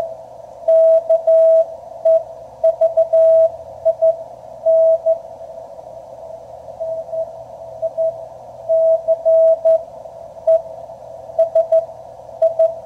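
Morse code (CW) signal received on a QRP Labs QCX transceiver: a single steady tone keyed in dots and dashes, over faint receiver hiss narrowed by the CW filter. It is another station's reply coming in, strong for about 4 watts.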